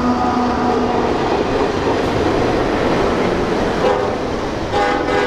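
Diesel locomotives running as they pull a passenger train, with a steady mechanical noise of engines and wheels on rail. A chime air horn is held at the start and fades about a second in, then sounds two short blasts near the end.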